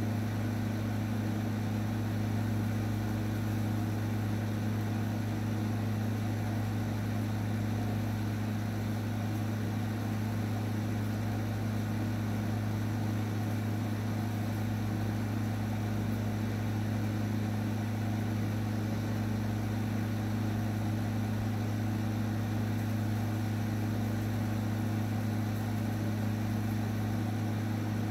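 Steady low machine hum that does not change.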